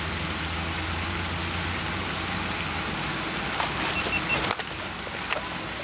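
Steady rushing outdoor noise, mostly wind on the microphone, with a low rumble in the first couple of seconds and a few light clicks about four to five seconds in.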